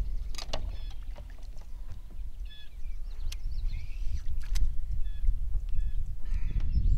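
Low, gusty rumble of wind on the microphone on an open boat, growing louder in the second half. Several short bird chirps and a few sharp clicks come through over it.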